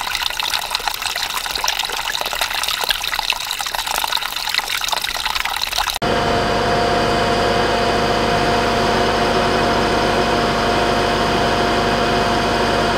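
Water pouring from a pipe outlet and splashing onto rocks below. About six seconds in it cuts off abruptly to a steady machine drone with a constant hum.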